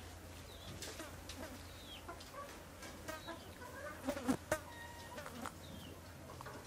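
Domestic hens clucking in short calls, loudest a little past the middle, with scattered small clicks over a low steady hum.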